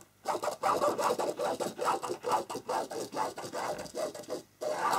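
A pen scratching a line onto fabric along the edge of a clear quilting ruler, in short repeated strokes about three a second, with a brief pause near the end.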